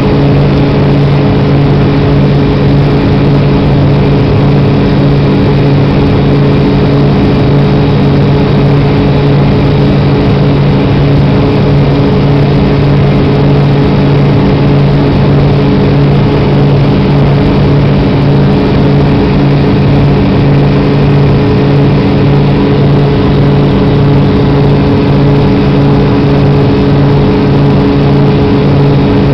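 Jet airliner's turbofan engine heard from inside the passenger cabin in flight: a steady, loud drone made of a constant low hum with an even rushing hiss over it.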